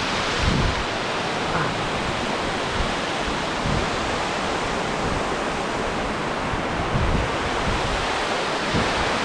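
Steady rush of moving water, a loud even hiss, with a few low bumps of wind on the microphone.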